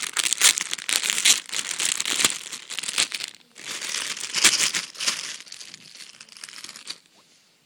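A plastic packaging bag crinkling and rustling as it is opened and handled, with sharp crackles throughout. It dies down about seven seconds in.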